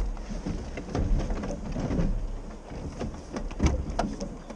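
Wind rumbling on the microphone, with scattered knocks and rustling from gear being handled in the boat.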